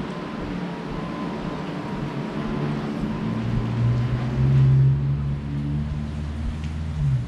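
A motor vehicle's engine passing by: it builds up over a few seconds, is loudest around the middle, and drops in pitch near the end, over a steady background hum.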